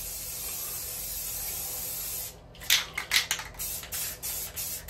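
Aerosol can of flat white primer spraying onto a fiberglass tub. A steady hiss cuts off a little after two seconds in and gives way to a quick run of short spray bursts, about three a second.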